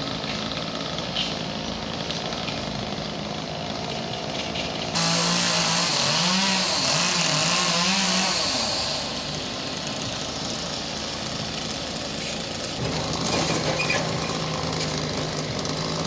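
A chainsaw's small engine idling and revving up and down as fallen tree branches are cut up, with a steady engine tone late on. The sound changes abruptly about five seconds in and again near thirteen seconds.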